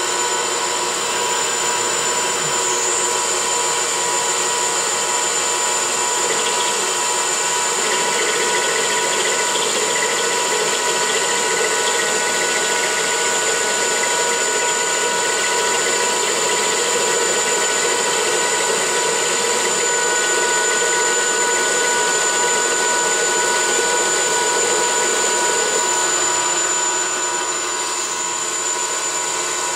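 9x20 metal lathe's treadmill-motor spindle running fast with a steady high-pitched whine while the CNC-fed carriage takes a light turning pass on a hardened bolt. The rougher cutting noise stops a few seconds before the end as the tool rapids back off the part.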